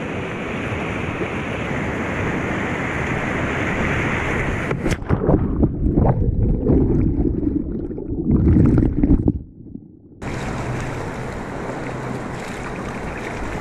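Whitewater rushing through a river play wave, then about five seconds in the sound cuts suddenly to a muffled low underwater churning as the kayak capsizes in the wave. A little after ten seconds the open rushing of the whitewater returns abruptly as the kayak rolls back upright.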